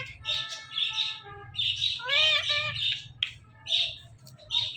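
Ringneck parrot calling and chattering: a string of short, squawky chirps, with a held even note in the first second and rising-and-falling calls about two seconds in.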